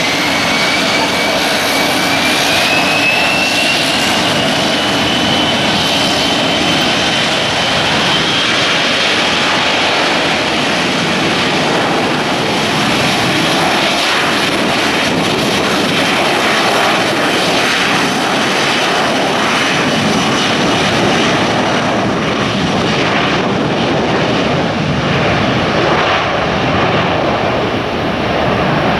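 Jet airliner's engines running at high power: a turbine whine rises over the first several seconds, then holds over a loud, steady rush of jet noise.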